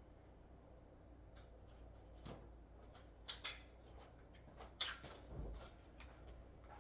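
Handling noise from picking up a phone mount: scattered short clicks and knocks of small hard parts, the loudest a little over three seconds in and just before five seconds in.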